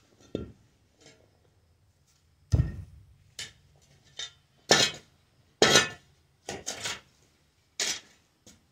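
Metal blade of a long-handled shovel striking and scraping stony dirt: a run of irregular chops with a bright metallic clink, roughly a second apart, beginning about two and a half seconds in, the first with a heavy thud.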